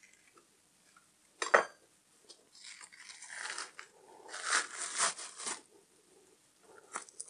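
Membrane being peeled off a rack of raw pork ribs by gloved hands: a sharp knock about a second and a half in, then a few seconds of tearing and rustling as the membrane pulls away.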